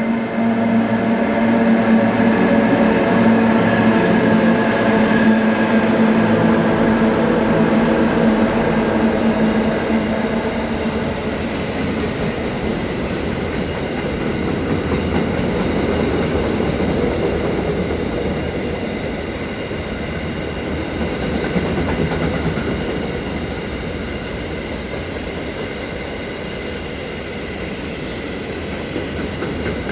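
Diesel train passing through a station: a loud, steady diesel engine drone for roughly the first ten seconds, then giving way to the rumble and clatter of wheels on the rails as the rest of the train goes by, slowly easing off.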